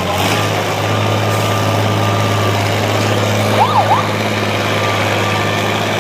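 Heavy truck engine running steadily while pulling a weight sled. About three and a half seconds in, a siren gives two quick rising-and-falling sweeps.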